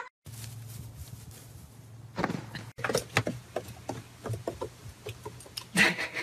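Small dog bounding through snow: a string of short crunching thuds at an uneven pace as its paws land, over a low steady hum, with a louder rush near the end.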